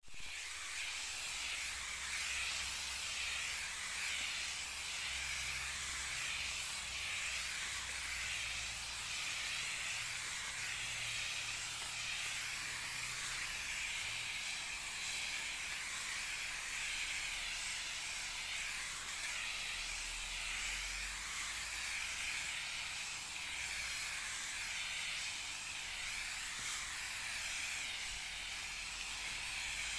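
Crop sprayer hissing steadily as it sprays pesticide on a bean crop.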